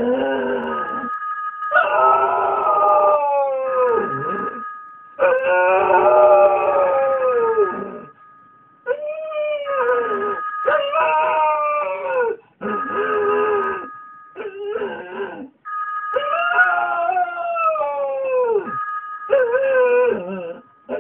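An English Cocker Spaniel howling: a run of about nine long howls, one after another, each dropping in pitch as it ends. A steady two-note electronic tone sounds on and off behind the howls.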